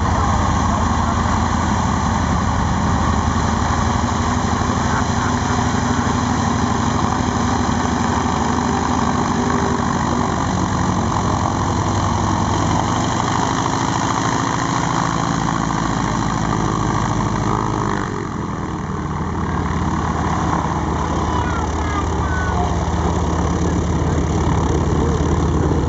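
The three BMW radial engines of a Junkers Ju 52/3m trimotor running at taxi power, with the two-bladed propellers beating as it taxis close by. About eighteen seconds in, this gives way to the engines of another radial-engined twin airliner taxiing away.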